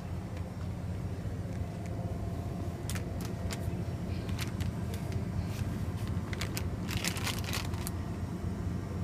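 Crackly rustling of plastic candy packaging being handled, in short spells from about three seconds in, thickest around seven seconds, over a steady low rumble.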